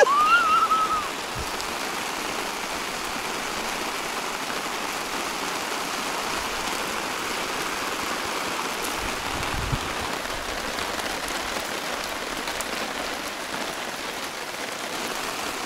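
Downpour of rain falling steadily on a nylon tarp overhead, with runoff pouring off the tarp's edge. A short, high whine sounds in the first second.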